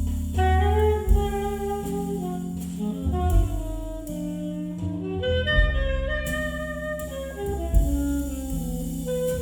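Jazz recording played back through REEZOLDINI Odeon L4 loudspeakers. An alto saxophone plays a slow melody over chords and low bass notes.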